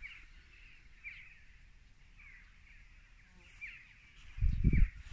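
A small bird calling: short high chirps, each dropping in pitch, repeated about once a second. Near the end, a loud low rumble on the microphone.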